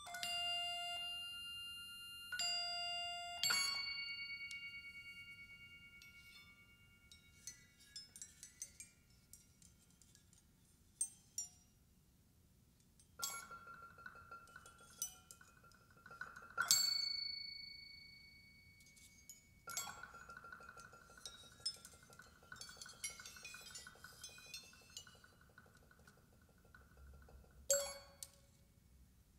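Experimental percussion and electronic music. It opens with clusters of steady, beep-like electronic tones and ringing struck tones in the first few seconds. Sparse clicks and rattles follow, then a buzzing sustained tone from a mallet keyboard whose bars are laid with foil and small cymbals, cut by a few sharp strikes.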